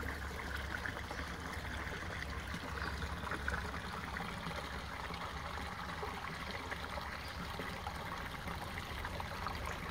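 Small garden waterfall splashing steadily over rocks into a pond, over a low rumble.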